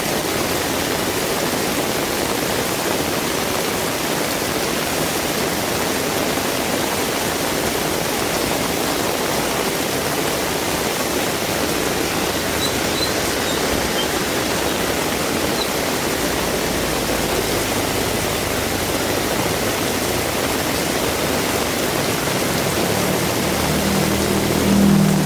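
Heavy rain pouring down in a steady, loud, even hiss. Near the end a low engine hum of a passing vehicle rises under it.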